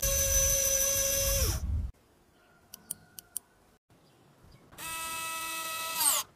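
A small battery-powered DC motor runs with a steady whine and stops about a second and a half in. A few light clicks follow. Then a second small motor runs for about a second and a half and winds down in pitch near the end.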